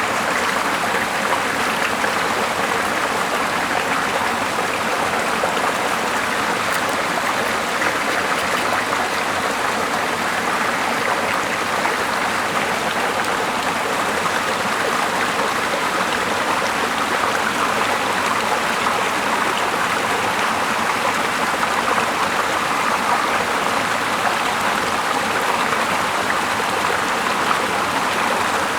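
Flowing water rushing steadily and evenly.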